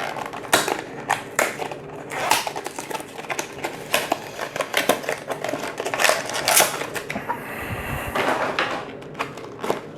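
Packaging being torn open and handled: irregular crinkling, rustling and quick clicks of cardboard and wrapping, as a Yu-Gi-Oh Special Edition package is opened for its promo card and booster packs.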